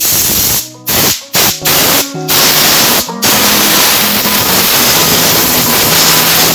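Compressed-air blow gun hissing as it blows brake dust and grime off the brake pads and caliper: several short blasts, then one long blast that cuts off abruptly.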